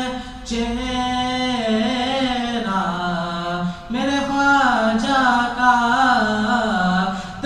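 A man's voice singing an Urdu manqabat unaccompanied, drawing out long, wavering held notes in two phrases with a short breath between them about four seconds in.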